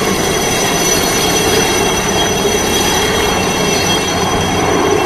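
Navy helicopter flying low overhead: steady rotor and turbine noise with a thin, constant high whine.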